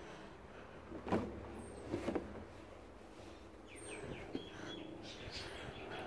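Laundry being handled and put into a top-loading washing machine's tub: cloth rustling with two short knocks about one and two seconds in, then a few faint high chirps near the middle.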